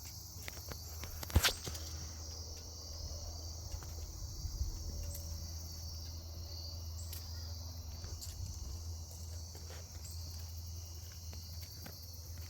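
Faint steady high-pitched insect chorus over a low hum, with scattered small clicks and one sharper click about a second and a half in.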